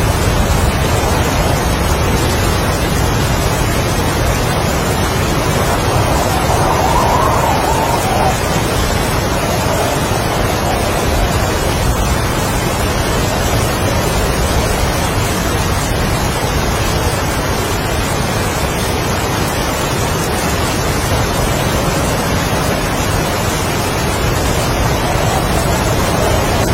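Strong wind and heavy rain in a steady, loud rush. The wind howls up faintly about a third of the way in and again near the end.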